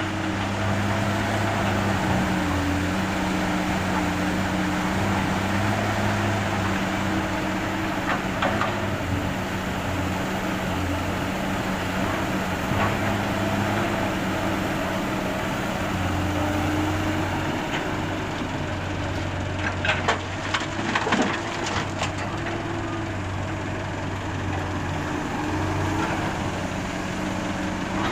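Diesel engine of a Komatsu PC200 hydraulic excavator running at steady speed, its note swelling and easing as the hydraulics take load. A quick cluster of sharp knocks comes about two-thirds of the way in.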